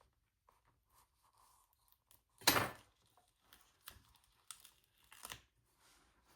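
A sticker peeled off its paper backing sheet: one short, sharp rip about two and a half seconds in, with a few fainter paper rustles and light taps around it.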